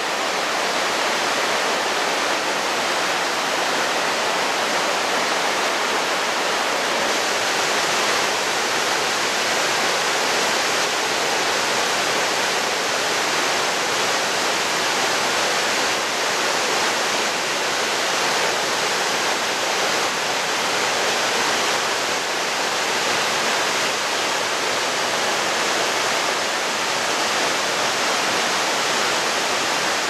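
Joren Falls waterfall plunging into its pool: a loud, steady, even rush of falling water.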